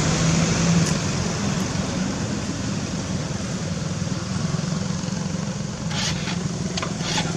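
Steady engine hum, like a motor vehicle idling, with a few short clicks near the end.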